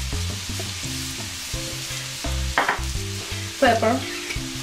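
Finely chopped vegetables sizzling steadily as they sauté in melted butter and olive oil in a skillet.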